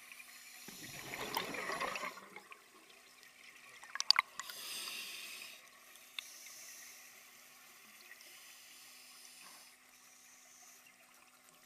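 Scuba diver breathing through a regulator underwater: a burst of bubbling exhaust about a second in, a few sharp clicks around four seconds, then a hiss from the regulator.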